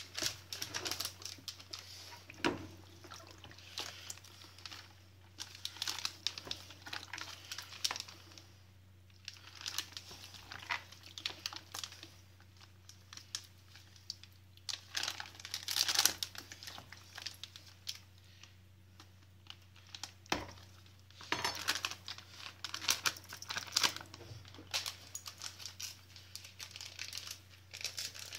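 Thin plastic food bag crinkling and rustling in irregular bursts as it is handled and filled with raw meat mixture, over a faint steady low hum.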